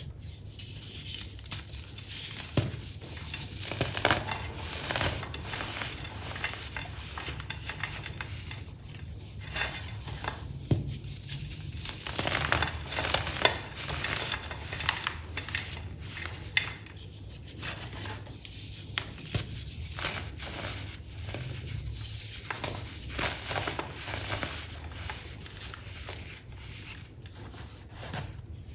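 Compressed baking soda being crushed, crunching and crackling in irregular bursts with frequent sharper snaps.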